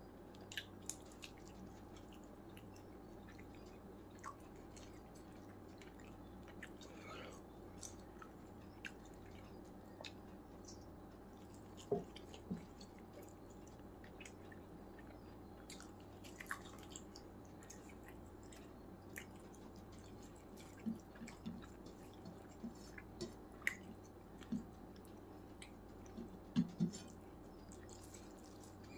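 Faint sounds of eating chicken biryani by hand: short, scattered wet clicks from chewing and fingers working the rice on the plate, a few louder ones in the second half, over a steady low hum.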